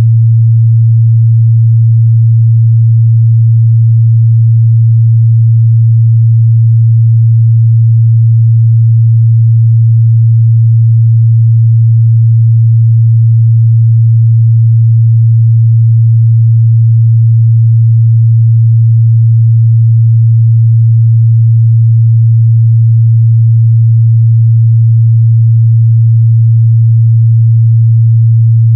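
A steady, loud 114 Hz sine-wave test tone, a single pure low hum held without change.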